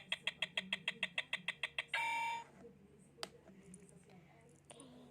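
Electronic sound effect of a toy kitchen set: a fast run of beeping ticks, about seven a second, ending about two seconds in with one longer beep, as a toy timer does. A light click follows a second later.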